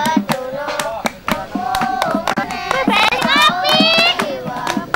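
A group of children singing together over hand claps that keep a quick beat, with a few long held notes near the end.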